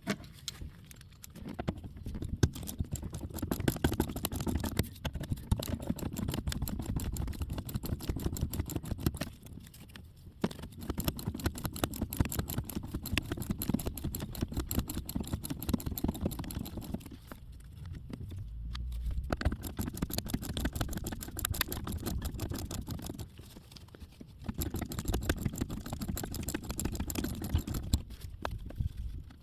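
Ratchet wrench clicking in rapid runs, with short pauses between them, as the 13 mm nuts holding the brake master cylinder to the brake booster are backed off.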